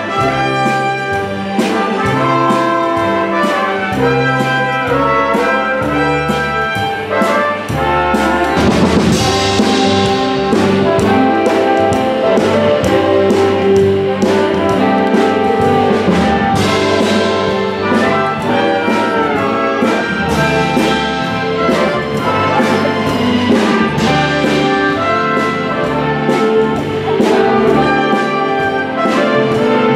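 Brass-led orchestral music in a jazzy style, with trumpets and trombones over a steady beat.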